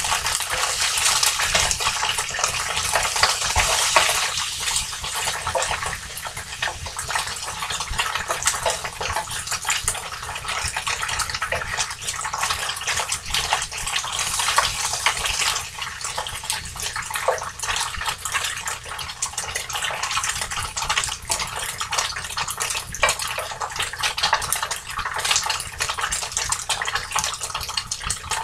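Crumbled tofu sizzling and crackling in a hot frying pan: a steady hiss with many small crackles, the sound of the tofu frying on its way to browning.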